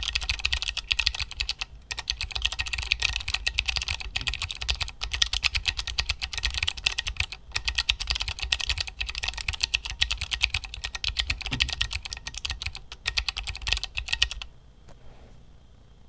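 Fast touch typing on a minipeg48, a tiny 4x12 ortholinear keyboard with low-profile Choc switches, CFX keycaps and an aluminum case. It is a quick, continuous run of keystrokes that stops about a second and a half before the end.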